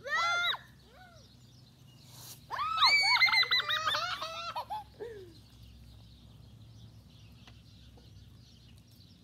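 Excited high-pitched shrieks and squeals from children: one short cry at the start, then a longer run of several overlapping squeals from about two and a half to five seconds in.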